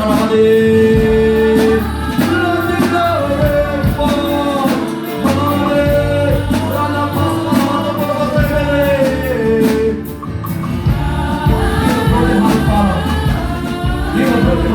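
Gospel worship music: a voice singing long gliding lines over held instrumental chords.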